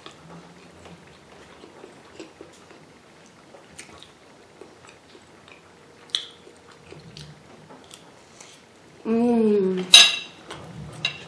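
Metal spoon clinking and scraping on a ceramic plate of rice, with soft chewing sounds. About nine seconds in, a short hummed "mmm" falling in pitch, followed by a sharp clink of the spoon on the plate.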